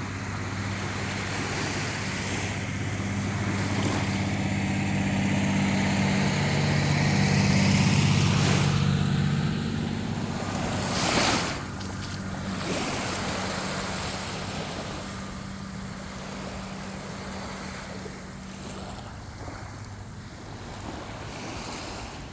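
Sea waves washing onto a beach, swelling to a breaking surge about halfway through, then easing. A steady low motor hum runs underneath and fades out near the end.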